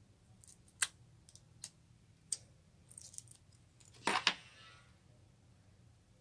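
Small hard objects clicking and tapping a few times, then a short, louder clatter with a brief ringing tail about four seconds in.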